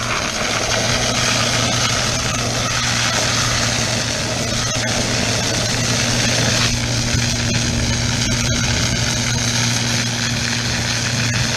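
Portable fire pump engine running steadily at high revs while pumping, with the hiss of two water jets spraying from the hose nozzles. The hiss eases slightly about two-thirds of the way through.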